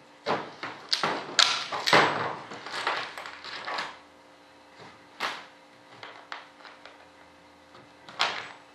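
Metal nuts and bolts clinking and knocking as they are picked from a pile and pushed through the flange of a mold to bolt its halves together. There is a quick run of clicks in the first few seconds, then a single sharp knock about five seconds in and another near the end.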